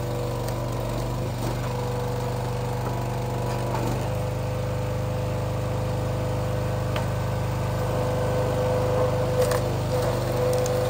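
Small gasoline engine of a hydraulic log splitter running steadily, its note changing abruptly about four seconds in. A few light knocks of split wood come near the end.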